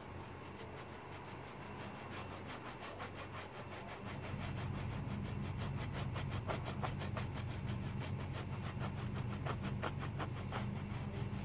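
Paintbrush bristles scrubbing paint onto a stretched canvas in quick back-and-forth strokes, a scratchy rubbing several times a second. A low steady hum comes in about four seconds in.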